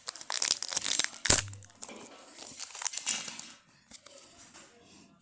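Wrapper of an O-Pee-Chee hockey card pack being torn open and crinkled, with a dull thump about a second in. The crinkling dies away after about three and a half seconds.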